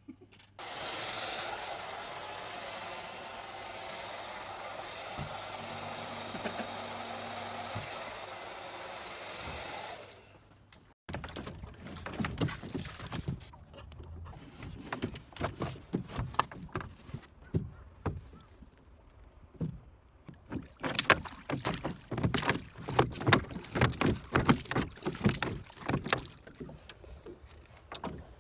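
A steady rushing noise for about the first ten seconds. Then a small rowboat being rowed: oars clunking in their oarlocks and dipping into the water, in irregular bursts of knocks that are loudest near the end.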